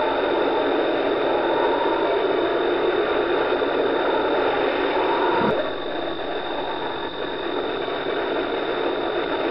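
Steady rushing storm noise from a storm scene playing on a television, heard through the set's speaker, with a constant high whine. About five and a half seconds in there is a click, and the noise drops a little in level.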